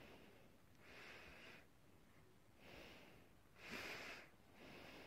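Faint breathing close to the microphone: about four soft, hissy breaths, the strongest about four seconds in.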